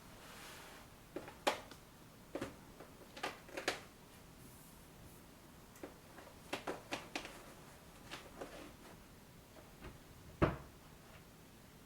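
Irregular clicks and knocks of household items being handled and set down while a kitchen is organised, with the loudest knock about ten and a half seconds in.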